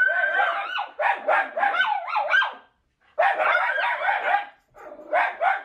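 Miniature schnauzers alarm-barking at dogs passing outside: rapid, high-pitched barking in three bouts, with brief breaks about three seconds in and near the end.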